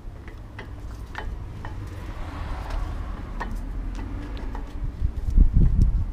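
Light metallic clicks and taps as a new brake pad is worked into a 2016 Lexus GX460's brake caliper and pad clips, followed near the end by a few heavy low thumps.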